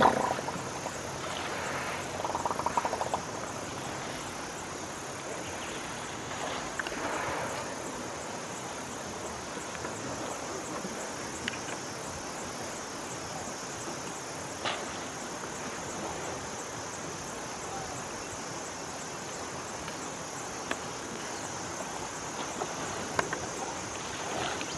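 Steady high-pitched insect chorus in forest, with a few scattered knocks and rustles.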